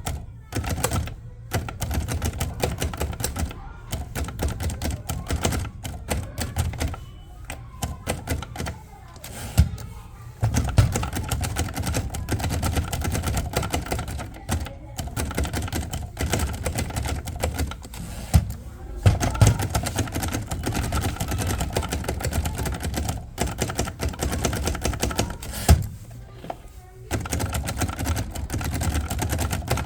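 Underwood Noiseless Portable typewriter being typed on: a rapid, steady run of keystrokes, broken by a few short pauses.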